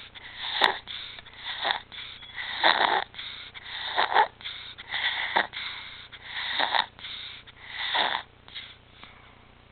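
An infant's noisy, rasping breathing (stridor), one breath about every second or so, fading out near the end. Stridor is the sign of a narrowed upper airway.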